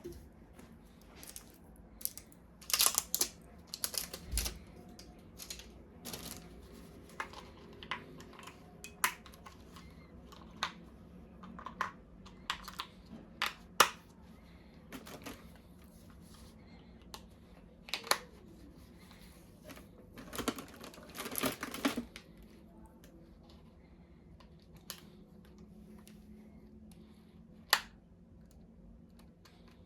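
Plastic toy parts and packaging being handled: scattered sharp clicks and snaps with short bursts of rustling, a busier flurry about three seconds in and another about two-thirds of the way through.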